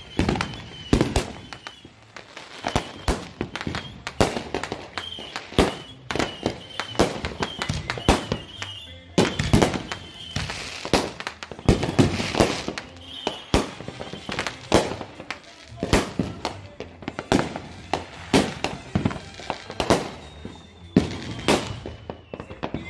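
Firecrackers going off in a long run of sharp bangs, a few a second at irregular intervals.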